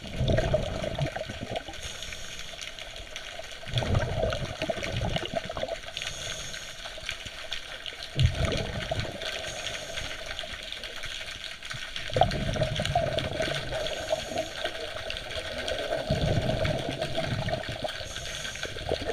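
A scuba diver breathing through a regulator underwater: exhaled bubbles gurgle out in bursts about every four seconds, with a fainter hiss of each inhale between them.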